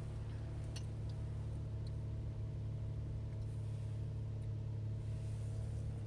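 2017 Kia Sorento engine idling steadily, just after it finally started following dozens of key turns that failed to start it.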